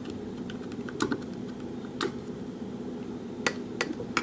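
A few scattered light clicks and taps, about five in four seconds, from handling a just-picked lock and its picking tools, over a steady low hum.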